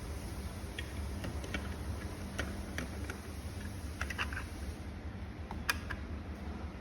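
Scattered small clicks and taps from handling the plastic wall-control parts and screws, with one sharper click about three-quarters of the way through, over a steady low hum.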